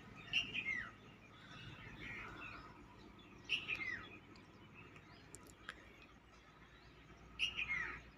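Birds singing: one bird repeats a short phrase three times, about every four seconds, each ending in a quick falling whistle, with softer chirps in between.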